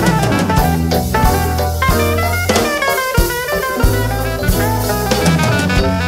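Live jazz band playing: a drum kit keeps a busy beat under a walking electric bass line, with a saxophone and keyboard lines on top.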